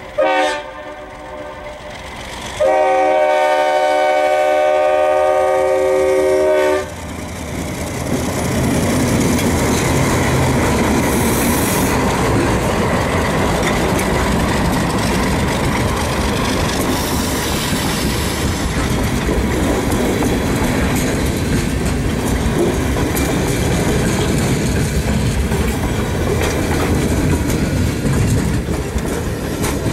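Alco RS-3 diesel locomotive sounding its horn, a brief blast right at the start and then one steady blast of about four seconds. The train then rolls past with its engine rumbling and wheels clacking over the rail joints.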